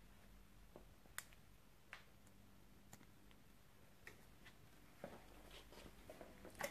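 Near silence with a few faint, scattered clicks and light knocks, a small cluster of them near the end.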